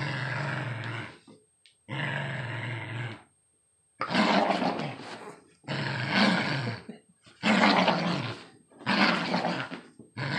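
Puppy growling in play while tugging on a plush toy: a string of about seven growls, each a second or so long, with short breaks between them.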